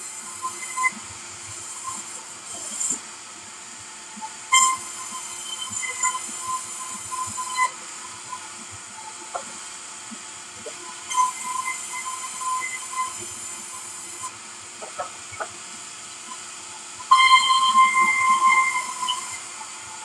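Sawmill band saw running and ripping a plank: a steady hum under a high-pitched whine that comes in spells of a few seconds as the blade cuts. The loudest spell is near the end, with scattered knocks of wood on the table.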